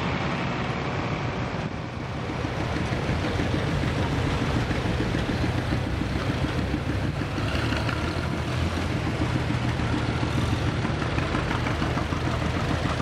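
Several vintage farm tractors driving past slowly, their engines running with a steady low drone that grows louder from about two seconds in.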